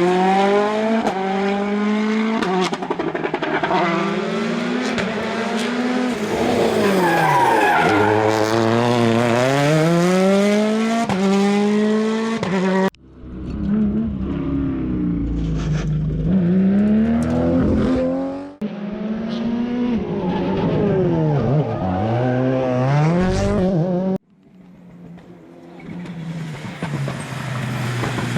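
Rally cars driven hard on a closed special stage: the engines climb in pitch through quick gear changes, drop off as the throttle is lifted, then rise again. Several passes follow one after another, each cut off abruptly.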